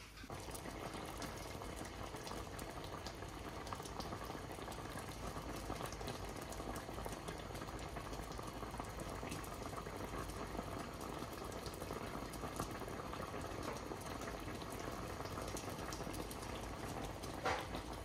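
Panela syrup with whole fruit boiling hard in a stainless steel pot: a steady, dense bubbling and popping as the panela dissolves.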